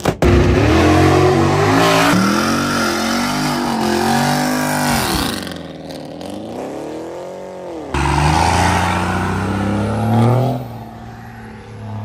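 Performance car engines revving hard, in short clips that change abruptly about two and eight seconds in. Around the middle, one engine's pitch drops away and climbs back up.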